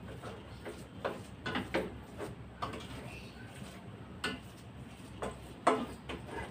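Metal spoon stirring thick glutinous rice for biko in a stainless steel pot, scraping and knocking against the pot in irregular clacks, the loudest near the end.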